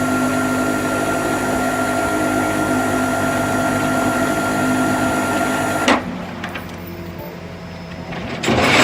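Tow truck machinery running with a steady mechanical hum made of several held tones, which cuts off abruptly about six seconds in, leaving a quieter hum; a loud rushing noise starts near the end.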